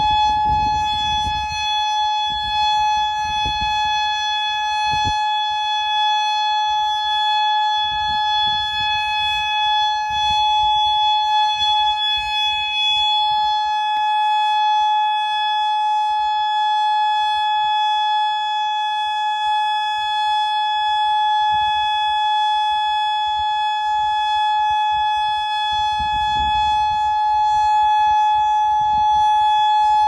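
Federal Signal Modulator 4016 electronic warning siren sounding its Alert signal in a monthly test: one steady, unwavering tone held throughout. Wind rumbles on the microphone now and then.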